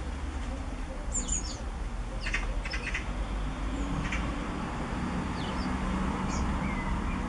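Short high chirps of small birds, scattered every second or two, over the steady trickle of a garden fountain.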